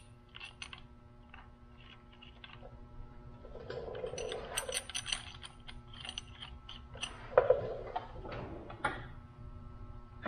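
Light metallic clicks and clinks from a steel timing belt guide and its bolt being handled and fitted by hand against the front of a Subaru EJ25 engine, with a few louder knocks in the second half.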